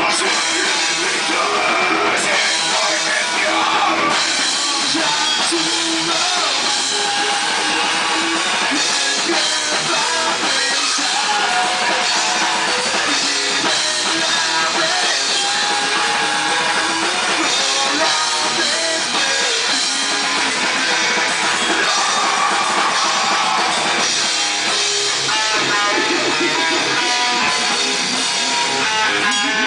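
Rock band playing: drum kit and guitar, at a steady level.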